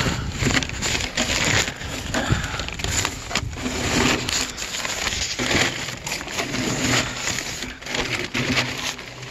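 A person crawling through a crawl space: clothing and body scraping and shuffling over dirt and debris, with irregular rustles and sharp knocks.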